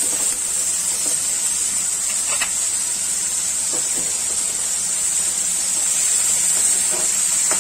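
Chopped onion and tomato sizzling steadily in hot oil in a kadhai while being stirred with a spoon, with a few faint scrapes of the spoon against the pan.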